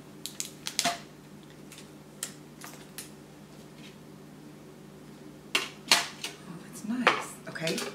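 Metal gift-set tin being handled and opened: scattered clicks and light metallic knocks, with a cluster of louder ones about six seconds in.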